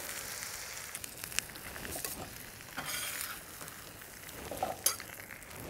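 Chopped vegetables (carrots, leeks and onions) sizzling on a very hot steel Feuerplatte fire plate: a steady sizzle with occasional sharp pops and crackles.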